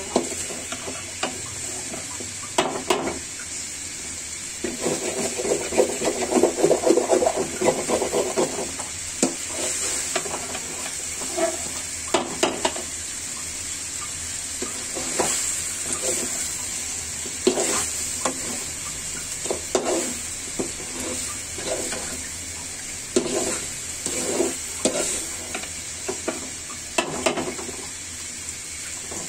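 Metal spatula scraping and stirring chicken and potato curry in a metal pan, with irregular scrapes and knocks over a steady frying sizzle as the spiced meat is sautéed dry (kosha). The stirring is busiest about five to eight seconds in.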